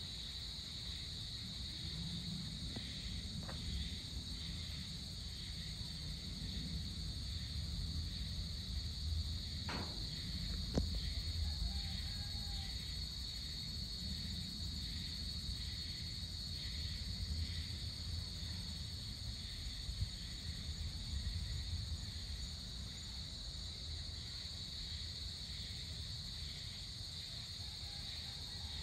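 Evening insect chorus: a steady high-pitched buzzing trill with a fainter regular pulsing beneath it, over a low rumble. A few faint clicks fall near the middle.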